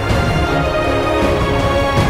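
Background music: a soundtrack of sustained chords over a steady low bass, which shifts to a new chord partway through.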